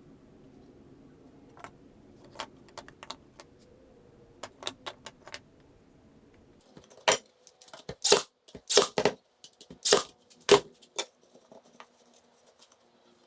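Irregular clicks and knocks from small wooden pieces and tools being handled during bench work: light scattered taps, then a run of louder, sharper knocks about seven to eleven seconds in.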